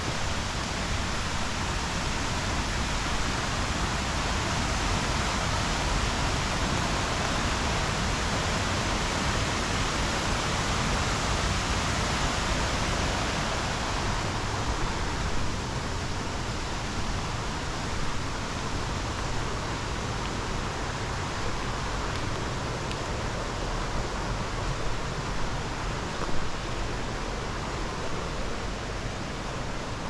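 Steady rush of flowing river water, an even hiss with no distinct events, easing a little about halfway through.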